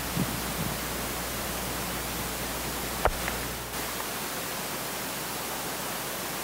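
Steady hiss of background noise, with no speech. There is one sharp click about three seconds in, and a low hum fades out shortly after.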